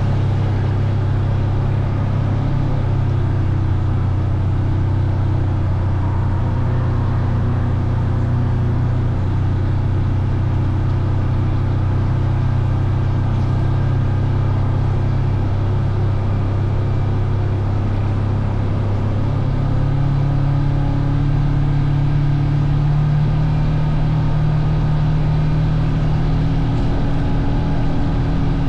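Engine of the vehicle being ridden, running steadily with a low drone; its pitch rises a little about two-thirds of the way through.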